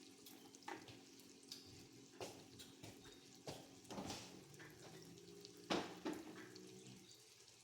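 Quiet kitchen handling noises: about six scattered sharp clicks and knocks over a faint steady hum.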